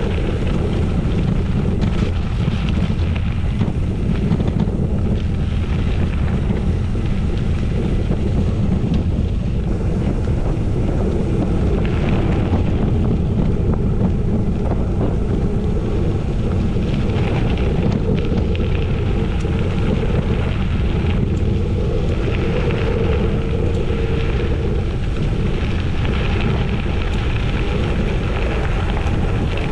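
Wind rumbling on the microphone while riding a gravel bike at speed: a loud, steady rumble.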